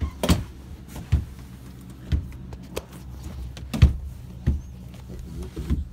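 Footsteps on a hard floor, a sharp knock roughly once a second, over a steady low hum.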